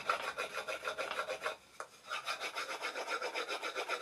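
Metal knife handle rubbed quickly back and forth along the edges of a wooden saw part, burnishing the edges to soften them, at several strokes a second. The strokes break off briefly about a second and a half in, then resume.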